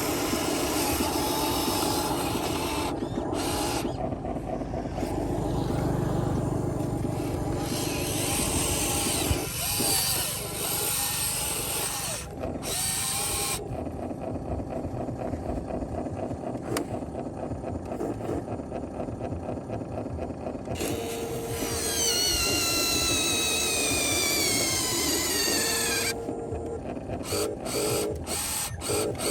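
Whirring of the small electric motors and gearboxes in radio-controlled toy construction machines, running in stretches that start and stop. About two-thirds of the way through, the pitch falls for a few seconds.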